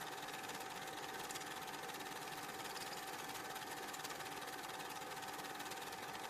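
Film projector running: a steady mechanical whir with a constant hum tone and a fast even flutter. No sound of the game itself.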